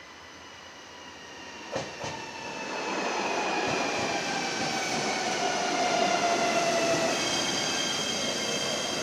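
JR Shikoku 7200 series electric train running in alongside the platform, its sound swelling as it nears. Two sharp wheel clacks come about two seconds in, then a whine falls in pitch as the train slows, with high steady tones near the end.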